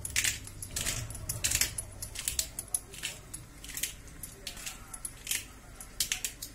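Hand pepper mill grinding peppercorns, a series of short, irregular grinding bursts as it is twisted again and again.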